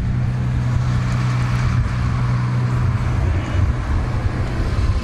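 A vehicle engine idling: a steady low hum with an uneven rumble beneath it.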